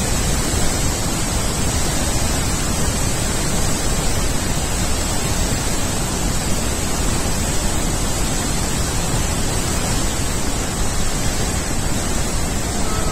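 Steady, loud roar of rushing water from Murchison Falls, where the Nile pours through a narrow gorge.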